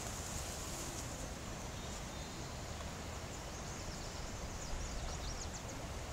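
Steady outdoor background noise with a low rumble of light wind on the microphone, and a few faint high chirps about five seconds in.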